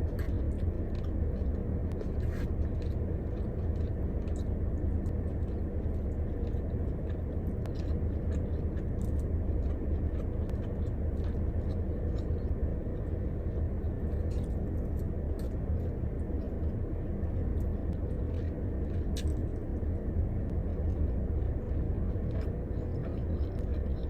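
Steady low hum and rumble of a car's running engine and heater fan inside the cabin, with scattered small clicks of someone chewing food.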